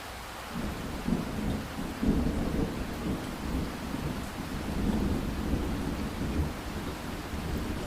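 Steady rain with a long roll of thunder that begins about half a second in and rumbles on, swelling and easing.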